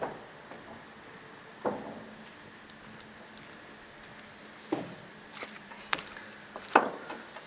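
Scattered knocks and clicks on a wooden jetty, such as footsteps on the planks, coming every second or two, with the loudest near the end.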